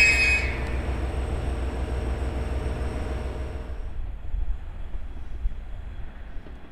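Train wheels squealing against the rails, the squeal dropping away about half a second in, then the low rumble of the train rolling, fading away.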